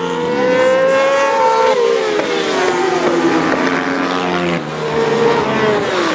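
Several racing sport motorcycles running at high revs on a track, their engine notes overlapping and rising and falling in pitch as they accelerate and pass. The sound changes abruptly about four and a half seconds in, then one engine note falls steadily in pitch near the end as a bike goes by.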